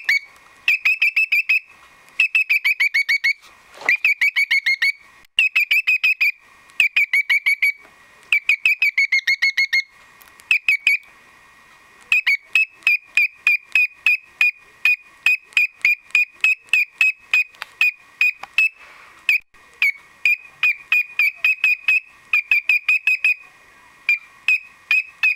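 Cockatiel calling 'kyo-kyo-kyo' in fast strings of short, high-pitched notes. The calls come in runs of about a second with short pauses, then run on without a break for several seconds midway.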